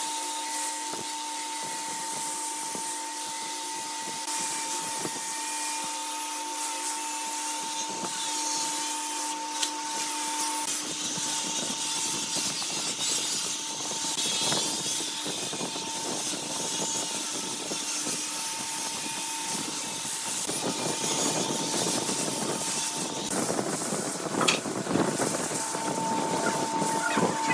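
Wood lathe running, with a steady high whine and lower hum over the hiss and scrape of a turning tool cutting the spinning wood. The whine drops out about a third of the way in and returns near the end.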